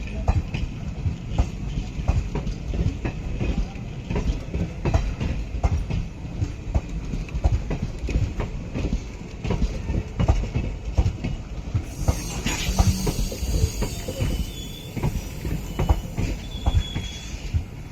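ICF passenger coaches rolling past, wheels clicking over the rail joints over a steady low rumble. A hiss and a few short high squeals come in about two-thirds of the way through.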